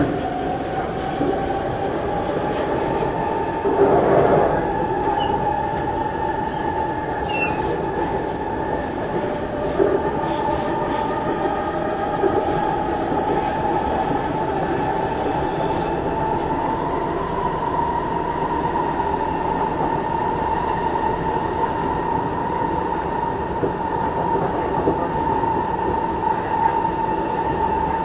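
Singapore MRT train running between stations, heard from inside the passenger car: a steady rolling rumble with a continuous high whine that climbs a little about halfway through. A brief louder rumble comes about four seconds in.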